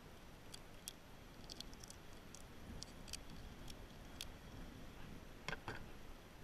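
Faint scattered clicks and ticks of hands handling a small fishing lure, line and scissors, with two sharper clacks close together about five and a half seconds in as the scissors are set down on a plastic cooler lid.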